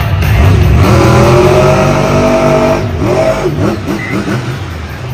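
Grave Digger monster truck's supercharged V8 engine revving hard under acceleration, its pitch climbing for about two seconds, then dropping off about three seconds in, followed by a few shorter revs.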